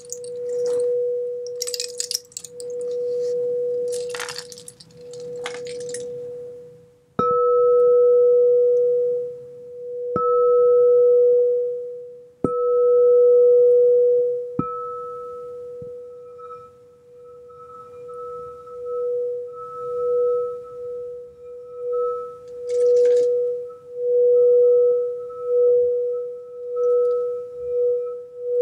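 Frosted crystal singing bowl sounding a steady low tone while a rain stick trickles in short cascades over the first six seconds. The bowl is then struck four times with a mallet, each strike swelling the tone, and from about the middle on the mallet is rubbed around the rim so the tone pulses about once a second.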